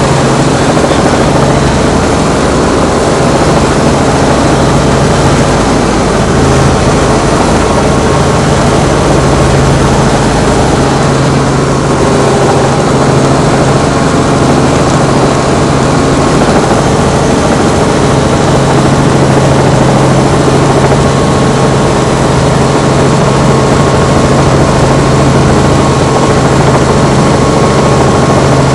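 Robinson R44 helicopter running steadily, its six-cylinder piston engine and rotors giving a constant, even drone.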